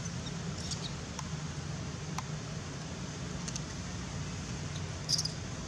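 Steady low hum of traffic and vehicle engines, with a few brief high-pitched squeaks over it, the loudest about five seconds in.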